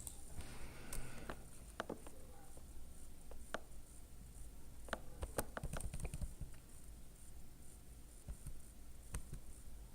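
Scattered faint clicks and taps at an irregular pace, thickest a little past the middle, over a low room hum.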